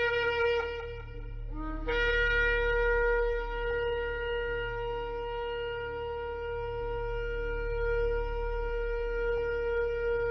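Shofar (ram's horn) being blown: a short blast that ends with a brief upward slide about two seconds in, then one long steady blast held for about eight seconds.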